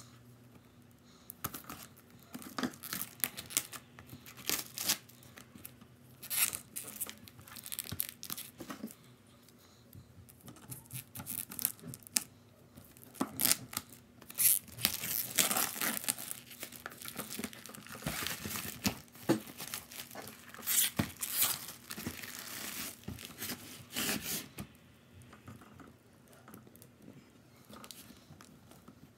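Packaging on a boxed set of acrylic paint bottles being torn and crinkled by hand, in irregular rustling, crackling bursts that die down over the last few seconds.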